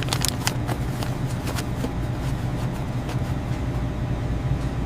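A steady low rumble, like vehicle or street ambience, with scattered sharp clicks and taps over it.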